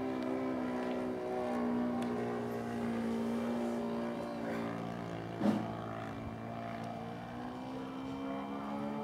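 Enya 120 glow engine of a Carl Goldberg Ultimate 10-300 RC biplane flying overhead: a steady drone whose pitch rises and falls slightly as the plane moves. A short thump sounds about halfway through.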